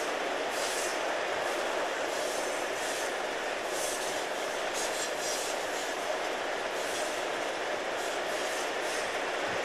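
Steady running noise heard from inside the cab of an EMD MP15DC diesel locomotive on the move: engine and wheels on the rails blending into one even rumble, with brief hissy swells now and then.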